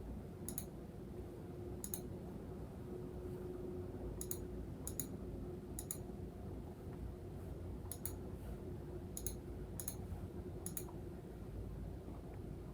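About nine sharp, thin clicks at irregular intervals, some in quick pairs, over faint room tone.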